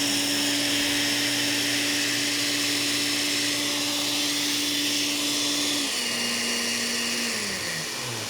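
Small kitchen blenders running, blending frozen fruit: a steady motor whine. About six seconds in the pitch drops, and near the end a motor slows down to a stop.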